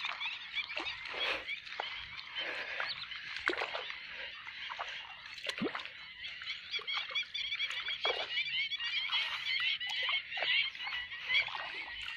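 A dense chorus of frogs in the flooded marsh, many short high chirping calls overlapping without a break, with the sloshing of footsteps wading through shallow water.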